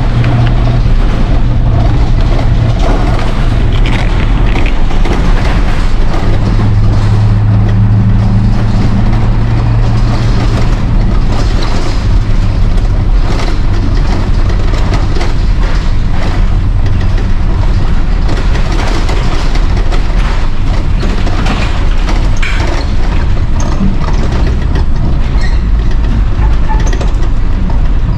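2001 International 3800 school bus's T444E V8 turbo diesel engine running loudly while the bus is driven, heard from inside the cab. The low engine drone shifts slightly in pitch as the speed changes, over steady road noise and frequent short rattles.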